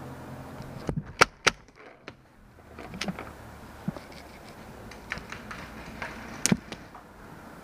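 Paintball fire: sharp cracks, a quick run of three about a second in, then scattered single cracks, with a loud one near the end.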